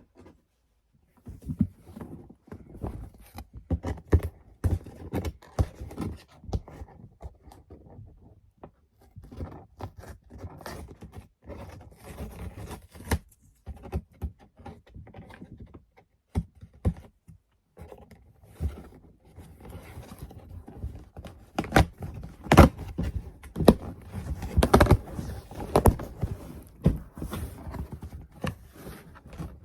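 A mailed package being handled and opened by hand: irregular thuds, scrapes and tearing of the packaging, busier and louder in the second half.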